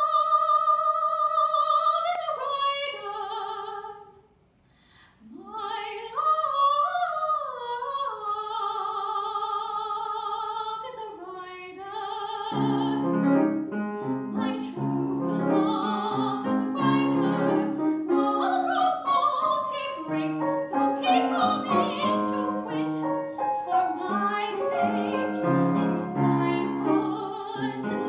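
A soprano singing a classical art song, at first alone, in long held notes with vibrato, then a short break and an upward swoop into the next phrase. About halfway through, a grand piano comes in with chords beneath the voice.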